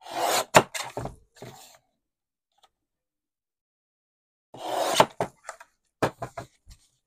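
Sliding paper trimmer's cutting head pushed along its rail through metallic mirror card, twice, each stroke ending in a sharp knock. A few light clicks and taps follow as the trimmed card is handled.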